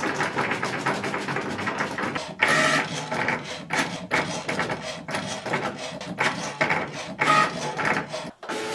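Cricut Maker 3 cutting machine running a cut. Its carriage motor whirs in short runs with stops and clicks in between, moving the blade back and forth while the rollers feed the sheet.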